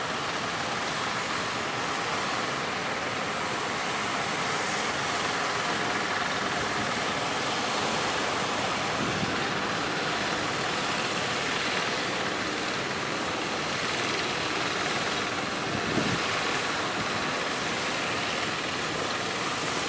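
Steady rush of strong wind and breaking surf, with a couple of brief low thumps about 9 and 16 seconds in.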